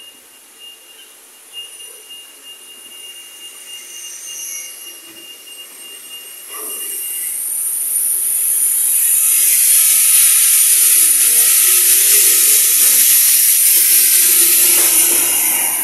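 A loud, steady hiss builds up from about six seconds in and holds. A faint high whistle runs through the first few seconds.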